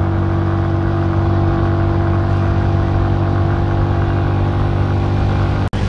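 Motorcycle engine running at a steady pitch while cruising. The sound breaks off for an instant near the end.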